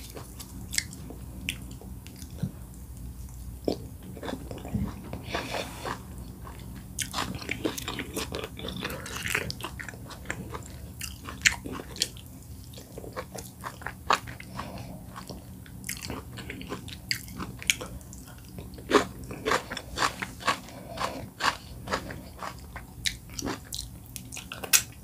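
Close-miked mouth sounds of a person eating oat fufu and bitterleaf soup by hand: chewing, wet lip smacks and many short sharp clicks, with fingers sucked at the lips near the end.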